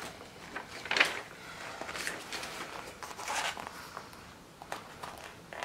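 Diamond painting canvas and its clear plastic cover film rustling and crinkling as hands smooth and handle it, in several short rustles, the loudest about a second in, with a few light clicks near the end.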